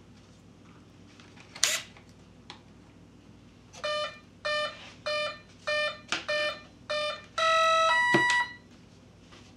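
Electronic speed controller start-up tones played through the 70mm EDF's inrunner motor: a run of short, evenly spaced beeps, then a longer tone and a higher closing tone, signalling the ESC has powered up on the battery and armed. A single knock comes shortly before the beeps.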